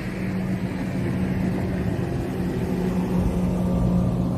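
Boat motor running steadily with a low hum, getting a little louder near the end.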